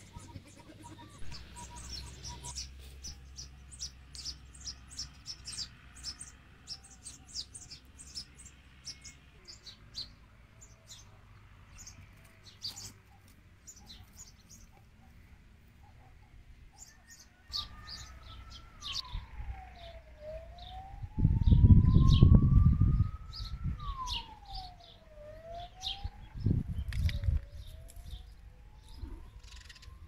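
Small birds chirping and twittering throughout. From about halfway, an emergency siren wails, slowly rising and falling in pitch. A loud low rumble briefly covers everything for about two seconds in the second half.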